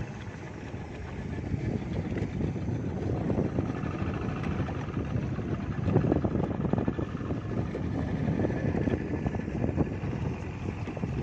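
Small motorboat running steadily across choppy water: engine drone mixed with wind and water noise.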